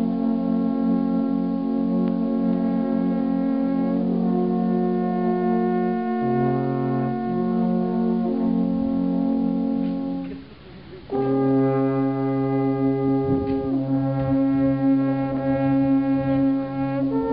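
A quintet of wooden alphorns playing together, holding long notes in harmony and shifting between chords. They break off briefly about ten seconds in, then come back in with a new held chord.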